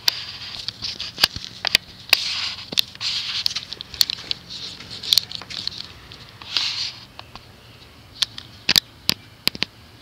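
Faint low buzzing hum of the Korvettes box fan's electric motor, under many irregular sharp clicks and crackles, with a couple of short hissy rustles. The hum weakens past the middle.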